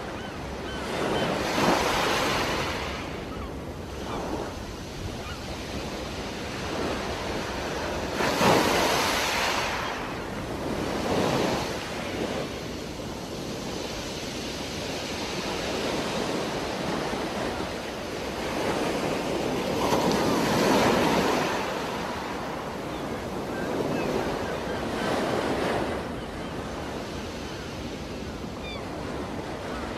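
Underwater recording of a scuba diver's exhaled air bubbling out of the regulator in bursts every few seconds, over a steady wash of water noise.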